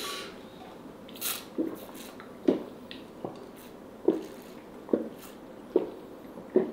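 Iced tea drunk through a straw in steady swallows: about seven gulps a little under a second apart, with a brief slurp about a second in.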